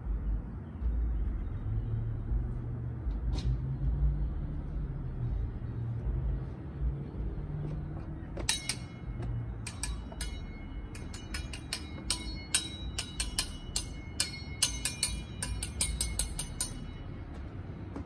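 A low rumble in the first half, then a quick run of light clinks with a ringing, jingling tone, several a second, starting about halfway in and stopping about a second before the end.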